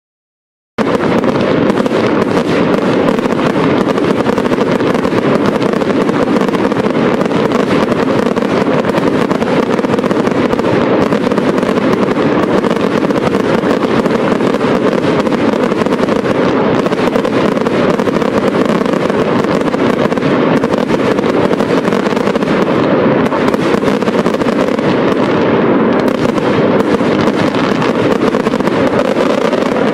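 Fireworks display going off in a dense, unbroken barrage of aerial shells and ground fountains, starting suddenly about a second in and holding an even loudness throughout.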